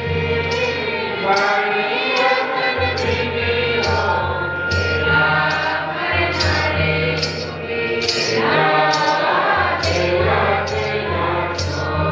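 Church choir and congregation singing a hymn together, backed by a steady drum beat and a regular metallic percussion tap about twice a second.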